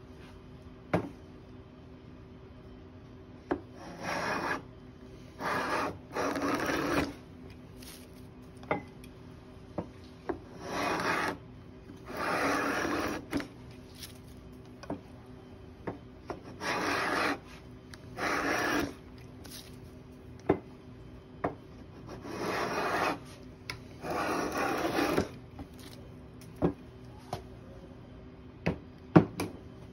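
Veritas hand plane cutting shavings from a board of East Indian rosewood: about nine rasping strokes, each a second or so long, several coming in pairs. Sharp knocks and clicks fall between the strokes.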